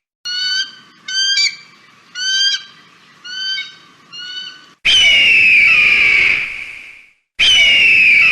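Kite (cheel) calling: first a run of five short whistled calls, then two long, loud, high whistled screams that fall slightly in pitch, about two seconds each. The second scream starts near the end. Each call starts abruptly, as in an edited clip.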